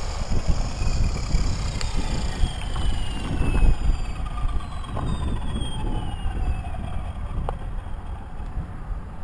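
Blade 360 CFX electric RC helicopter spooling down after touching down. The motor and rotor whine falls steadily in pitch as the main blades slow almost to a stop.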